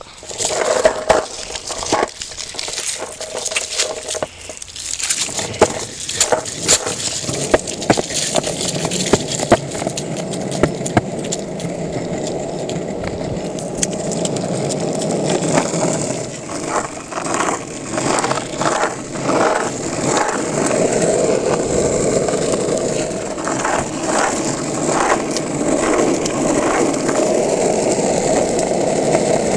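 Longboard wheels rolling over concrete sidewalk and asphalt, a steady rumble that builds during the first few seconds. Repeated clicks and knocks, most at the start and again in the second half.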